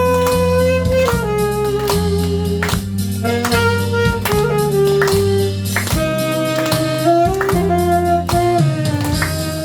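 Saxophone playing a slow melody of long held notes over an accompaniment with bass and drums.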